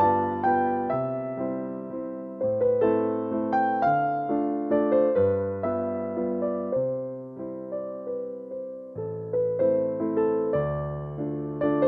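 Background music: a gentle electric piano melody, notes struck and left to fade.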